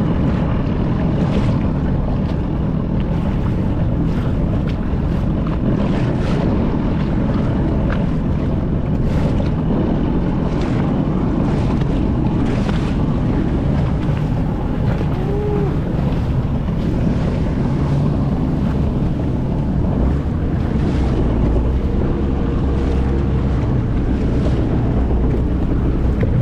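A motor watercraft running steadily on open water, its engine noise mixed with water rushing past and wind buffeting the microphone, with short splashes every second or so.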